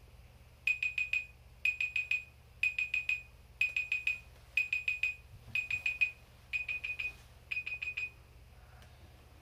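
Phone alarm beeping: groups of four quick high beeps, one group about every second, eight groups in all, then it stops near the end.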